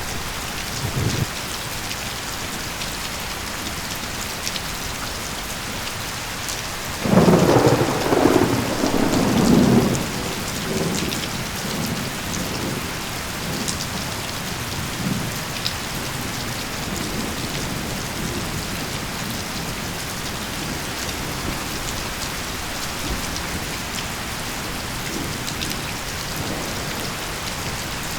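Steady rain falling, with a roll of thunder about seven seconds in that lasts about three seconds and then rumbles away in smaller swells.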